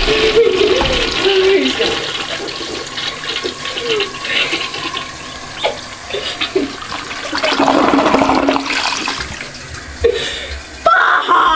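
Toilet flushing, the water rushing and swirling down the bowl.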